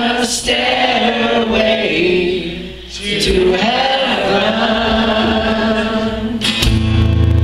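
Several voices singing together in long held notes over acoustic guitars. Near the end a loud, deep strummed chord comes in.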